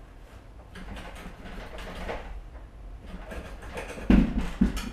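Metal parts of a mobility scooter being worked loose by hand during teardown: scraping and clattering, then two heavy knocks near the end.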